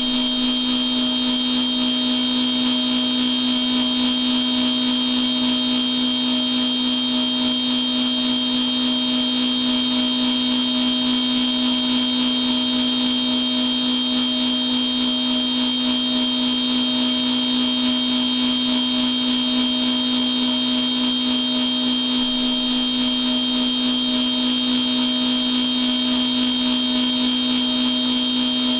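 Machine tool running a machining program without cutting or coolant, its spindle and drives giving a steady whine of several fixed tones that does not change.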